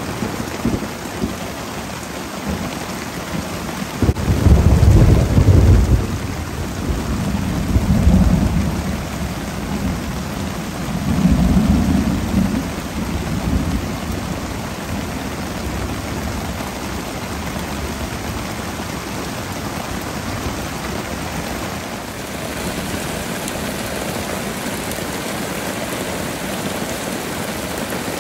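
Thunderstorm: steady rain, with three low rolls of thunder in the first half. The first and loudest roll comes about four seconds in, and the last fades out around thirteen seconds.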